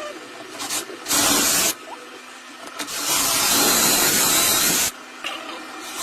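Power drill boring through furniture board held in a corner drilling jig, running in two bursts: a short one about a second in and a longer one of about two seconds from three seconds in.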